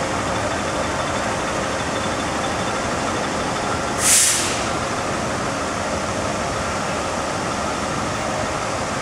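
Fire engine's diesel engine running steadily at idle, with a short, sharp hiss of air from its air brakes about four seconds in.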